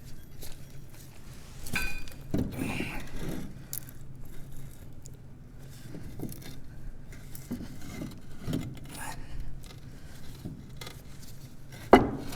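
Metal tools and parts clinking and scraping while a track loader's idler is refitted, with a short ringing clink about two seconds in and a sharp knock near the end.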